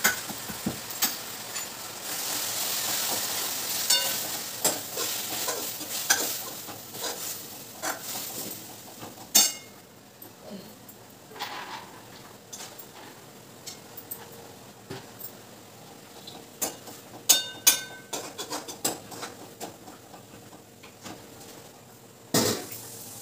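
Gongura (sorrel) leaves sizzling as they fry in a metal kadai, stirred and scraped with a steel spoon. The sizzle is loudest in the first several seconds and then softens, and the spoon gives several sharp metal clinks against the pan.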